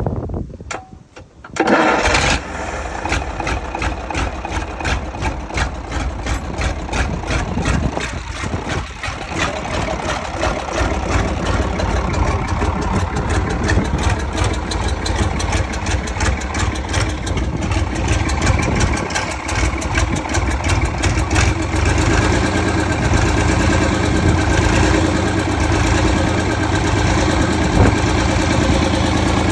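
A freshly overhauled engine catches about two seconds in and keeps running at idle, settling into steadier, slightly louder running near the end.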